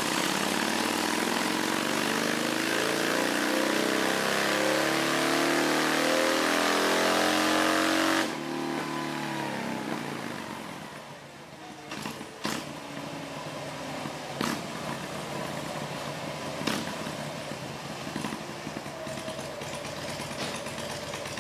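Harley-Davidson 96 cubic inch air-cooled V-twin on stock pipes making a wide-open-throttle pull on a chassis dynamometer, its pitch climbing steadily for about eight seconds. The throttle is then chopped abruptly, leaving a much quieter engine sound with a few sharp clunks.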